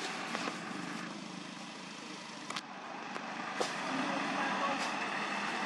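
Steady outdoor background noise with a few faint clicks, growing gradually louder after the middle.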